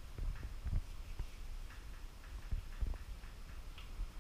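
Faint, irregular light clicks and low knocks, scattered and without any steady rhythm.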